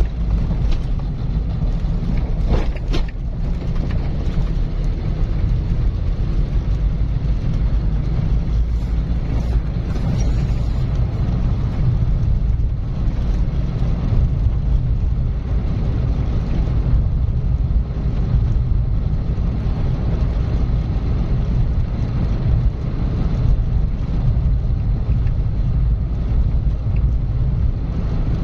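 A car driving at a steady speed: a constant low rumble of engine and road noise.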